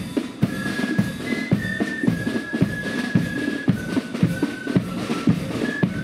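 Corps of drums marching band playing: a high flute melody over snare drums and the beat of a bass drum.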